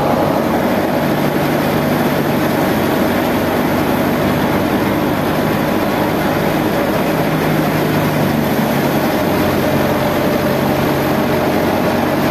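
Fiat tractor's diesel engine running steadily under load, driving a wheat thresher by belt from its PTO, together with the thresher's spinning drum and pulleys: a loud, even machine drone.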